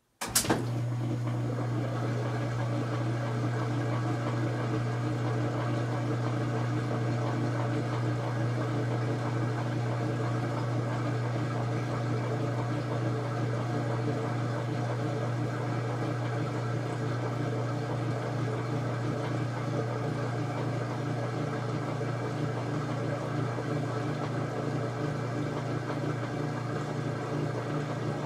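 Kenmore 800 Series washing machine running steadily under motor power, a constant low hum with churning water and mechanical noise over it. It starts suddenly with a click about a third of a second in.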